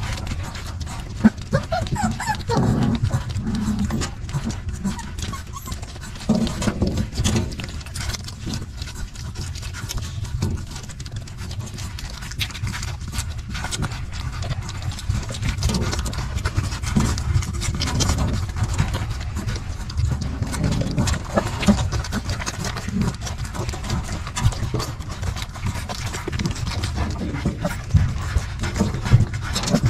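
Hungry puppies jostling and suckling at their mother dog's teats, with a dog panting and many small wet clicks and knocks as they push and scuffle against her and the box. A few brief squeaky sounds come about two to three seconds in.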